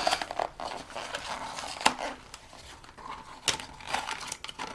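Packaging being handled and opened: rustling and crinkling with scattered sharp clicks and taps as a blind-box carton is torn into.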